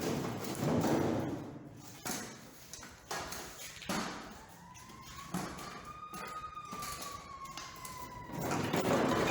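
Irregular metal knocks and clunks from the car body as a sheet-steel quarter panel is worked loose at its last attachment point. From about halfway a thin wailing tone slowly rises and then falls, like a distant siren.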